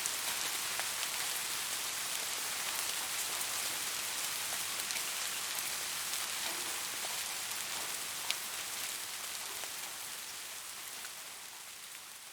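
Steady soft rain, an even hiss with individual raindrops ticking through it and one louder drop about eight seconds in. It fades out over the last few seconds.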